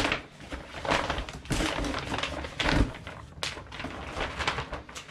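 White plastic shopping bag crinkling and rustling as it is handled and pulled out of a cardboard box, in irregular bursts.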